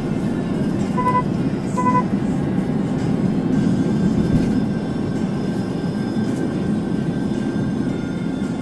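Steady road and engine rumble inside a moving car's cabin. Two short electronic beeps sound about a second in and again about two seconds in.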